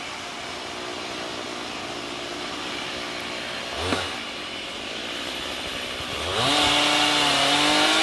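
Two-stroke chainsaw running faintly at idle, then revving up about six seconds in and holding a steady, louder pitch.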